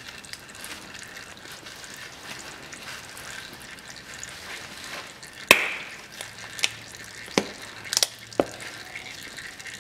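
A handful of sharp clicks and taps over a faint steady hiss. The loudest click comes a little past halfway, followed by about four lighter ones over the next three seconds, as of small parts or containers being handled.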